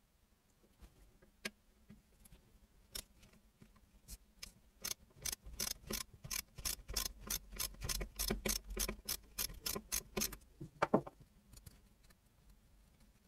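Socket ratchet wrench clicking as it works a bolt on a small motorcycle engine's casing. A few single clicks come first, then a quick, even run of about three clicks a second for several seconds, which stops near the end.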